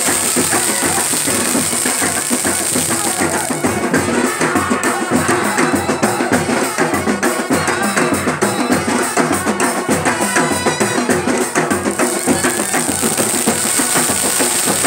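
Loud drum-led music with a steady bass drum beat, about two beats a second, clearest in the middle stretch.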